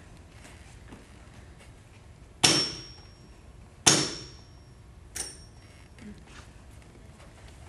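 Three hammer blows on metal, about a second and a half apart, each with a short metallic ring; the third is lighter. They stage nails being driven in a crucifixion.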